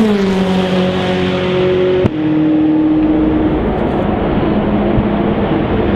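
Ferrari 488 GTE race car's 3.9-litre twin-turbo V8 running on track. Its engine note drops in pitch at the start, then holds steady. A sharp click about two seconds in is followed by another steady engine note at a different pitch.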